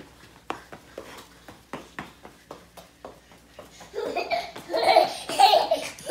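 Light taps about twice a second, then loud, hearty laughter from about four seconds in.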